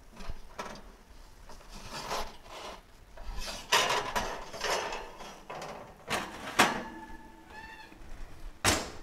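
Knocks and scrapes of a hot pizza being worked out of a gas oven onto a wooden pizza peel: the oven rack and pizza stone clatter in several short, sharp strokes. A faint squeak comes about seven seconds in.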